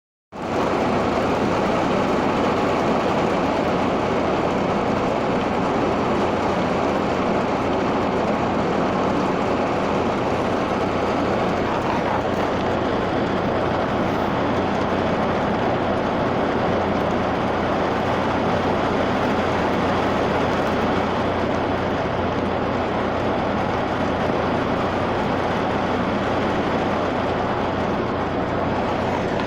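Steady rain falling, a dense even hiss with a faint low hum beneath, swelling in right at the start.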